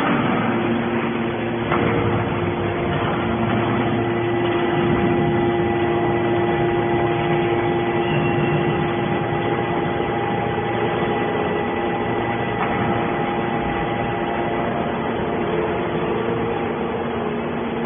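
Hydraulic scrap baler's power unit running steadily: a constant mechanical hum with several held tones, with a brief knock about two seconds in and another past the middle.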